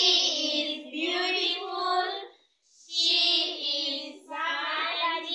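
A group of schoolgirls singing together in short phrases, with a brief pause about halfway through.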